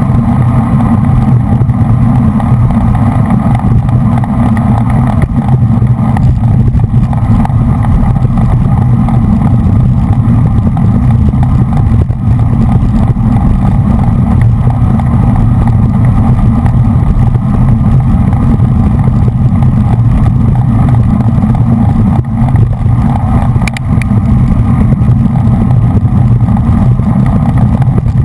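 Steady, loud low rumble of wind buffeting a bike-mounted action camera's microphone while riding at racing speed in a bunch of road cyclists.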